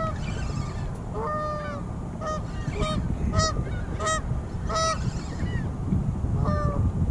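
Geese honking: a run of about eight short honks, roughly one every half second to second, with a pause before the last. A steady low rumble sits underneath.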